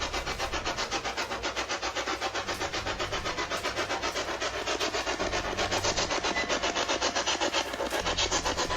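Spirit box sweeping AM radio stations, giving rapid, evenly chopped bursts of static at about seven or eight a second, with a low rumble underneath.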